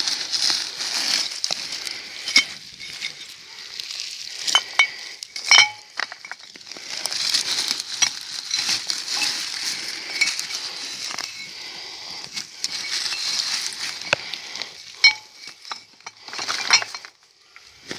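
A hand rummaging through dry moss, twigs and pine needles on the forest floor, a steady crackling rustle, with sharp clinks of small glass bottles now and then.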